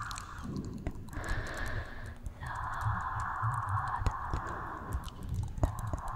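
Close-miked ASMR trigger sounds: many soft clicks and taps with low thumps, over a hiss that comes and goes.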